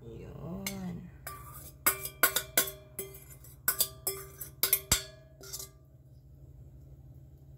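A metal spoon knocking and scraping against a stainless steel mixing bowl about a dozen times over four seconds, each knock ringing briefly, as the last of a beaten egg and milk mixture is scraped out.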